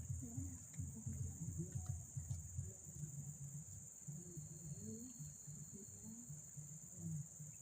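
Insects chirring in one steady, high, unbroken drone, over a low irregular rumble.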